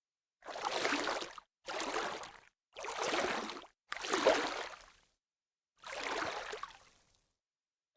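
Water splashing in five separate bursts of about a second each, every one fading away and cut off by dead silence before the next.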